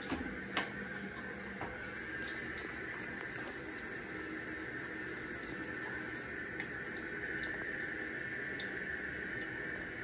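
INAX dual-flush toilet refilling after a flush: water running steadily through the tank, with a few light clicks near the start.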